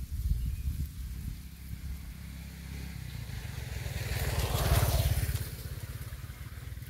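A motorbike passing: its engine noise builds to loudest about four to five seconds in, then fades away.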